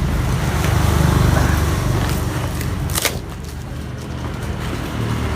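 A running engine with a low, steady hum, and one sharp knock about three seconds in, after which the hum drops somewhat.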